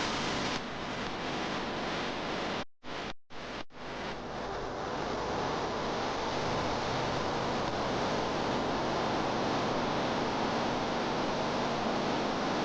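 Weissbach waterfall rushing, a steady even noise of falling water. It cuts out briefly three times about three seconds in.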